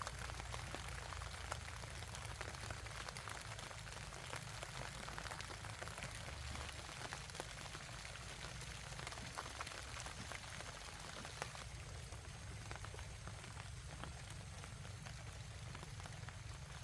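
Steady rain falling, a continuous hiss made of many small drop impacts.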